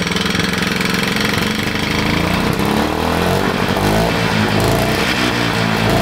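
Jacobsen 321 two-stroke lawn mower engine running. About halfway through, its speed starts wavering up and down, and it makes an odd noise that doesn't sound good.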